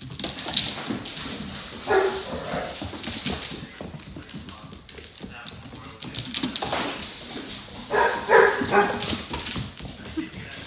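Play barks and yips from a German shepherd puppy and an Alaskan malamute puppy: a bark about two seconds in and a louder run of several barks near the end. Claws click and scrabble on a hardwood floor between them.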